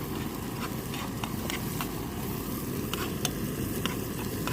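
Portable gas camping stove burning with a steady low rumble, with scattered sharp crackles from the hot pan.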